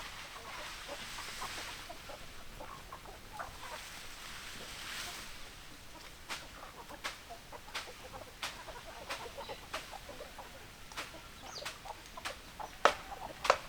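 Domestic chickens clucking softly. A rustling hiss runs for the first five seconds, then sharp, irregular taps come several times a second as their beaks peck at feed.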